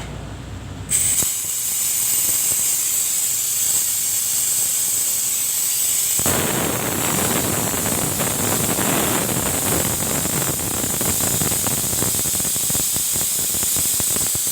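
Compressed air hissing out of a 50-litre oil-less silent air compressor's tank or hose, cutting in suddenly about a second in; about six seconds in the rush turns rougher and fuller, with a fine crackle.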